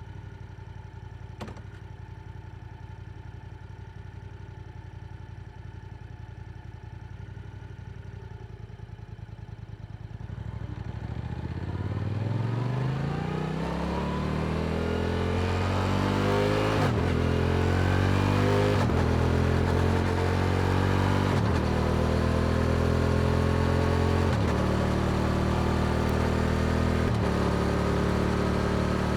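Yamaha R7 with an Akrapovic exhaust running steadily at low revs, then pulling away hard from about ten seconds in, its note rising and dropping back at each of several quick upshifts. A single click about a second and a half in.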